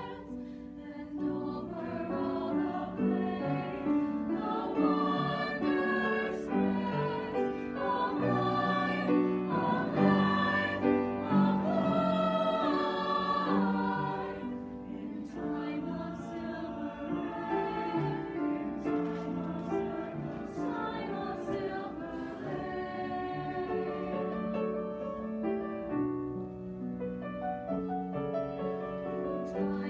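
High school mixed chamber choir singing with piano accompaniment, louder through the first half and softer from about halfway.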